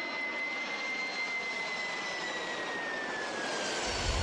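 Jet airliner engine noise from a Boeing 767-300: a steady rush with a high whine that slides a little lower in pitch. A deep rumble sets in just before the end.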